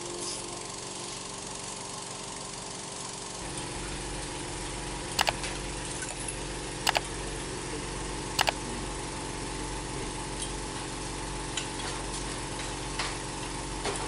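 Three sharp mouse-click double clicks about a second and a half apart, the sound effect of an on-screen subscribe-button animation, over a steady low hum.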